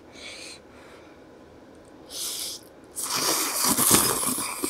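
A person slurping soup-wet noodles, a mix of tofu, konjac and kelp (cheonsachae) noodles in mala broth: two brief breathy sounds, then a long, loud slurp starting about three seconds in.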